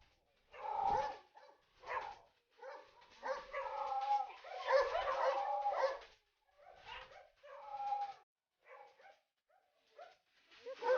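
Doberman whining in a string of short bouts: high, wavering whines broken by brief silences.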